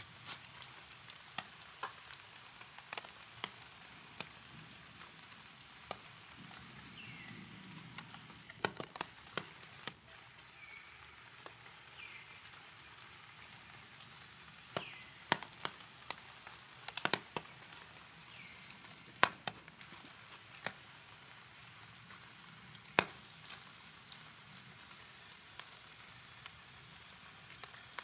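Light rain: a faint steady hiss with scattered drops tapping sharply on hard surfaces. A few short, high, falling chirps come now and then.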